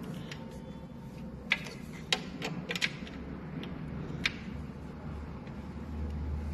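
Scattered sharp metallic clicks and knocks of hand tools and screws, from unscrewing the mounting screws of a treadmill's drive motor. About five clicks fall in the first half, and a low rumble swells near the end.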